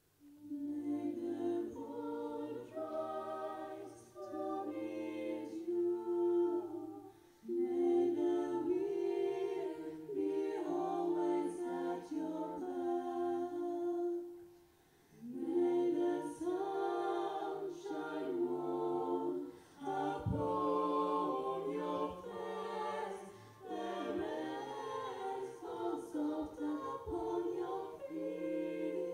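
A female vocal ensemble singing a cappella in several-part harmony, without instruments, in phrases separated by brief pauses.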